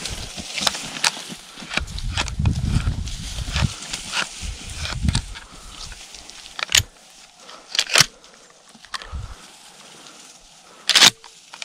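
Dry tall grass rustling and crunching underfoot as someone pushes through it. This is followed by a few sharp clicks from a pump-action shotgun being handled and reloaded with shells, the loudest near the end.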